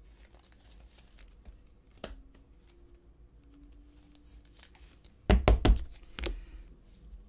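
A trading card being slid into a clear plastic sleeve and rigid toploader: soft rustling and sliding of plastic with a single click about two seconds in. About five seconds in comes a quick run of sharp, louder taps and knocks, then one more a moment later.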